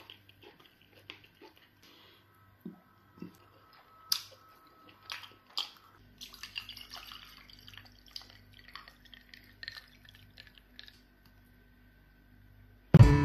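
Water poured from a plastic bottle into a drinking glass, a few seconds of splashing trickle about halfway through. Before it come scattered soft clicks and squishes of hands handling pounded yam fufu.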